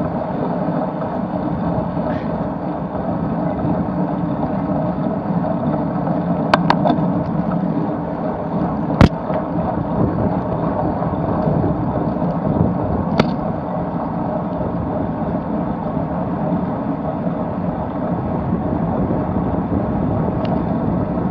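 Steady rush of wind and tyre noise on a bicycle-mounted camera's microphone while riding road bikes in a group, broken by a few sharp clicks; the loudest click comes about nine seconds in.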